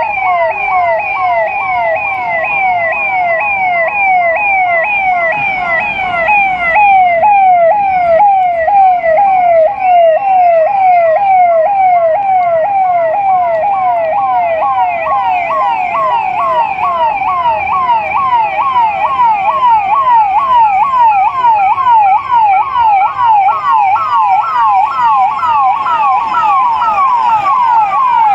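Electronic emergency-vehicle siren sounding continuously in a fast yelp, each cycle a quick falling sweep, several cycles a second. It gets louder about a quarter of the way through.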